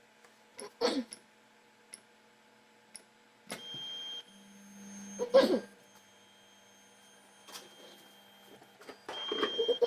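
3D printer's stepper motors running in short moves, each a steady whine lasting under a second, with a low hum between them. Scattered clicks and knocks come from the machine and from handling.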